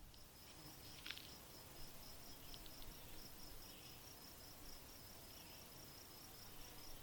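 Faint insect chirping: a steady train of short, high pulses, about four a second, with a brief sharper chirp about a second in.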